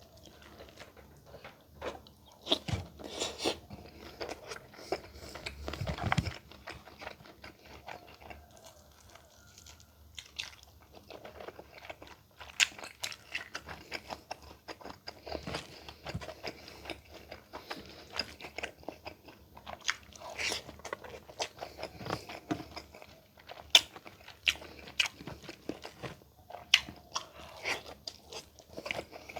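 Close-miked eating: a person chewing, with irregular sharp crunches and wet mouth clicks, busiest in two spells near the start and toward the end.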